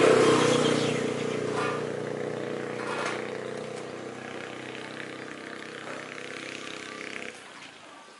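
A motorbike engine running at a steady pitch, growing fainter and then cutting off suddenly about seven seconds in.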